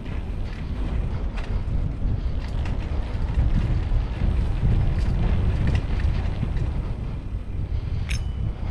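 Wind buffeting the microphone of a camera riding along on a moving bicycle, a steady low rumble. Near the end comes one brief sharp, high-pitched sound.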